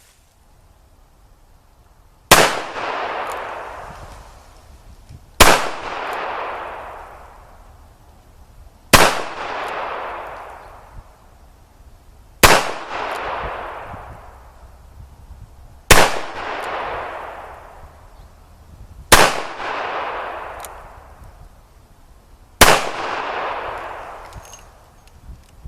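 Taurus Model 66 .357 Magnum revolver fired seven times, one shot every three and a half seconds or so, emptying its seven-shot cylinder. Each shot is followed by a long echo that dies away over about two seconds.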